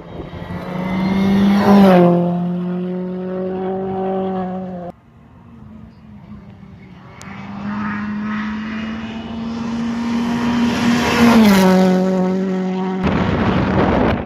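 Two rally cars go by at speed, one after the other. Each car's engine note holds high as it approaches and drops in pitch as it passes, once about two seconds in and again near the end. A rushing noise follows the second pass.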